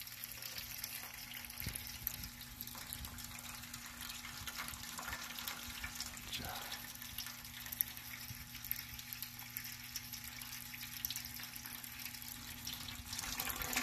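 Diesel pouring steadily from an oil-water separator's outlet hose into a stainless steel basin, with a constant splashing trickle. It is the filtered output, coming out clean while the separator holds back the ink-stained water.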